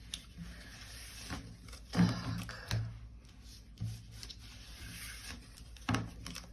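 Tarot cards being turned over and slid on a table: a soft papery rustle with a few light taps.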